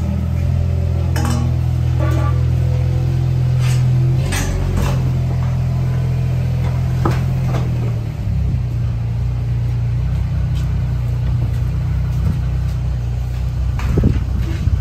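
Engine of a small farm utility vehicle running steadily as it tows a metal calf-transport box, with light metal clinks and rattles, and a few louder metal knocks near the end.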